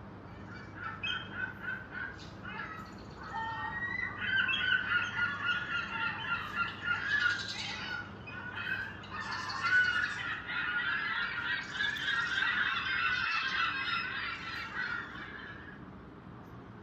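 Sound-effect recording of a flock of geese honking, with many overlapping calls that thicken a few seconds in and die away near the end.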